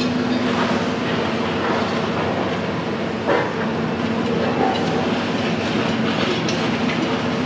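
Steady mechanical drone with a constant low hum over a broad rumble, and one brief knock about three seconds in.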